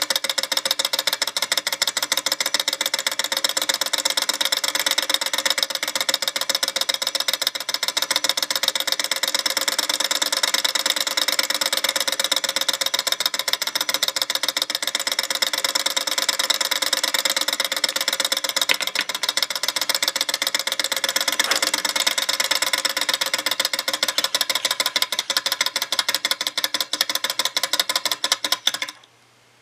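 Alcohol-fired model Stirling engine running, its piston and crank linkage giving a rapid, even clatter; it cuts off suddenly near the end.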